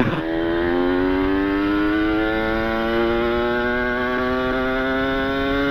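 Kawasaki Ninja RR's two-stroke single-cylinder engine breathing through an ABRT20 aftermarket exhaust, pulling under throttle with its pitch climbing steadily as the revs rise through the gear.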